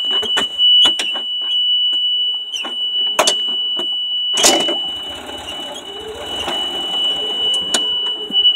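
A steady, high-pitched electronic tone sounds without a break, over the rattling and knocking of a golf cart being driven, with one loud knock about halfway through.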